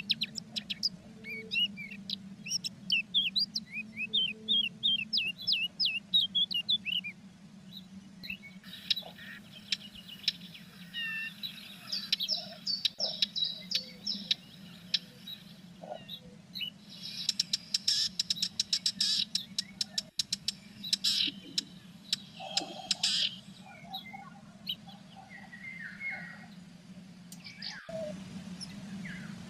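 Small songbirds chirping and calling in many short notes, with two long stretches of rapid scratchy clicking mixed in, over a steady low electrical hum.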